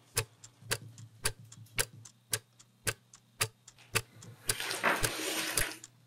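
A clock ticking steadily, about two ticks a second. About four and a half seconds in, a rustling hiss swells over the ticks for about a second and a half, then stops.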